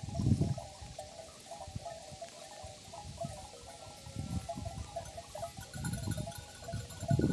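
Many small bells on a grazing flock of sheep clinking continuously and unevenly, with a few louder low muffled bumps now and then.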